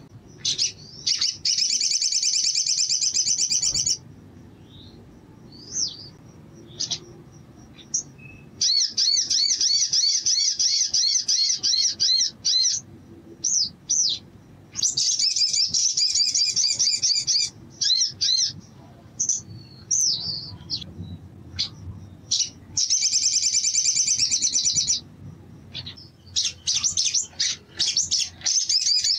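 Male olive-backed sunbird singing: five long bursts of fast, high, rapidly repeated trilling notes, each two to four seconds long, with short sharp chips in the pauses between.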